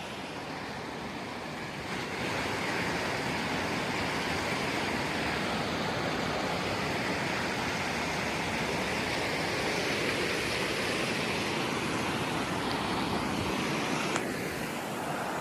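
Waterfall pouring into a pool, a steady rush of falling water, a little louder from about two seconds in.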